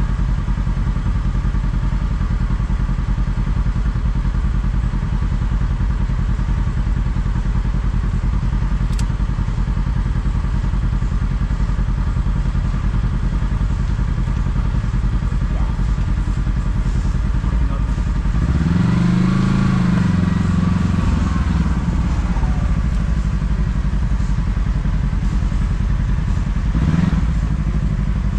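Side-by-side UTV engine running steadily at low speed, then revving up and down about two-thirds of the way through, and briefly again near the end.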